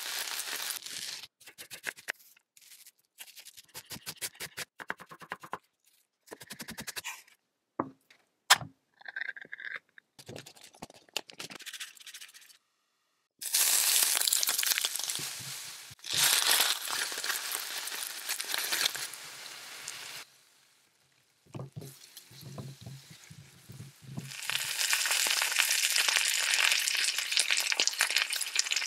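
Cooking sounds from a frying pan: a run of quick clicks and taps and one sharp crack, then hot oil sizzling loudly as grated garlic and cumin seeds fry. Near the end a mackerel fillet sizzles in oil.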